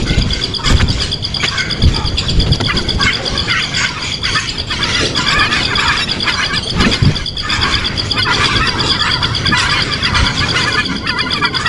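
Young birds chirping and squealing over and over, over a steady high-pitched drone, with a few dull low thumps.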